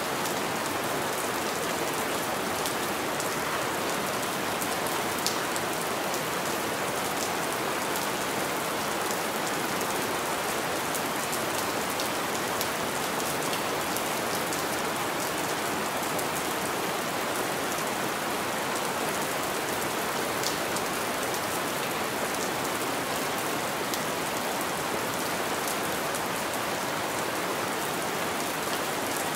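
Steady rain falling on a window, an even hiss with scattered sharp ticks of single drops striking.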